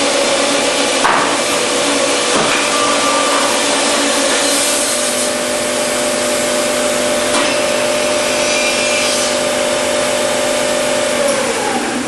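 Saw of an automatic lumber-package cross-cutting line running through a stacked package of boards: a steady machine whine over sawing noise, the pitch dropping near the end.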